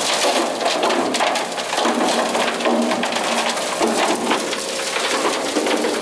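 Chunks of hardened concrete, chipped off the mixing fins, tumbling and rattling inside a concrete mixer truck's rotating drum as it discharges them. It is a loud, continuous clatter of rock on steel.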